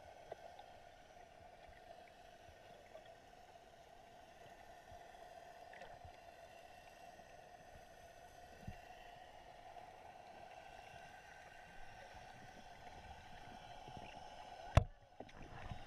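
Underwater ambience picked up by a submerged camera: a faint, steady hum with a few soft ticks, and one sharp knock about a second before the end.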